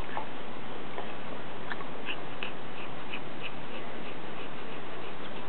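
Husky chewing on a T-bone, with a few sharp clicks of teeth on bone at first. From about two seconds in it pants in a quick even rhythm, about three breaths a second, over a steady hiss.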